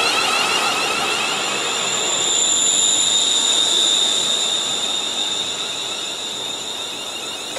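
ScotRail Class 380 Siemens Desiro electric multiple unit pulling out of the station and running past. A steady high electric whine sits over wheel and rail noise, easing slightly toward the end.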